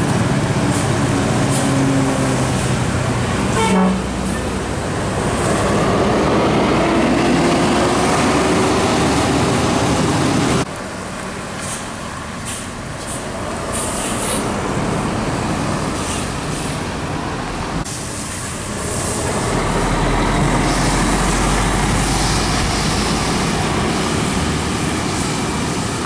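A tour bus, cars and motorcycles driving past on a road, their engines running, with one engine rising in pitch as it accelerates and a horn toot.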